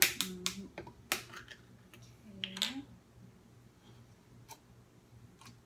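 Sharp clicks and snaps of a plastic screw cap being twisted off a plastic sports-drink bottle, the tamper seal breaking, with a few fainter clicks later.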